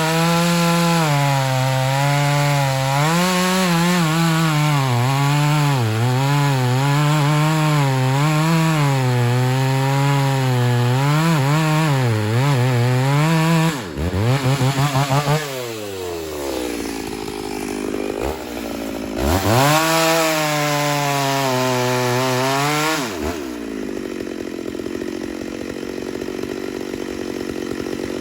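Ported Homelite Super XL-925 82cc two-stroke chainsaw cutting red oak with its 28-inch bar buried, the engine pitch wavering under load for about fourteen seconds. Then the throttle drops, it revs high again for a few seconds, and it settles to a lower, quieter run near the end.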